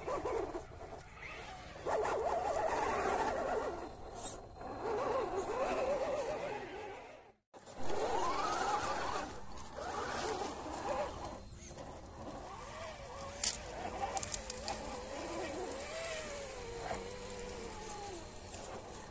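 Electric motor and gears of a scale RC crawler whining, the pitch rising and falling with the throttle as it crawls over rough ground. The sound drops out completely for a moment about seven seconds in, and a single sharp click comes near the middle.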